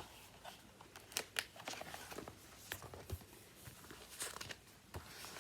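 Faint rustling and scattered small clicks of a paperback picture book's pages being handled and turned.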